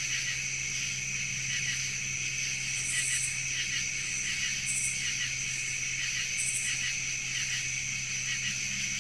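A steady outdoor chorus of insects chirring in two high bands, with a steady low hum beneath it. A few brief, higher hisses come and go through it.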